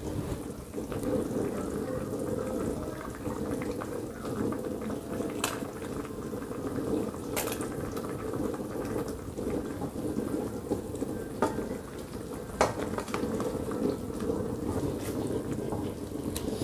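Coconut-milk fish sauce simmering and bubbling in a wok on a gas burner, a steady bubbling, with a few short light clicks scattered through it.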